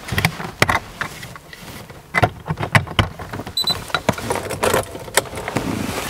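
Handling of a wireless OBD diagnostic dongle and its plug under the dashboard: a run of irregular plastic clicks and knocks as it is fitted into the diagnostic port, with one short high beep about three and a half seconds in.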